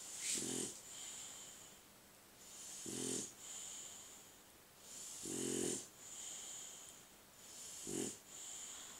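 Snoring in sleep: four short, low, buzzing snores about two and a half seconds apart, with a thin, high whistling hiss of breath between them.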